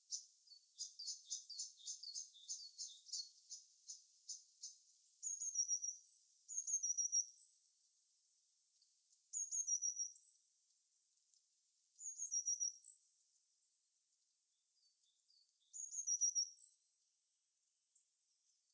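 Small songbirds calling and singing: a quick run of sharp high chips for the first few seconds, then a short high song phrase that steps down in pitch, repeated four times a few seconds apart.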